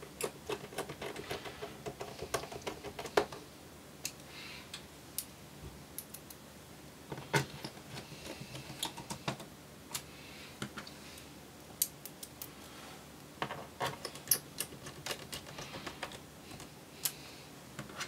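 Small Phillips screwdriver driving screws back into a laptop's base panel: light, rapid clicks and ticks of the bit and screws, in three bursts with short pauses between.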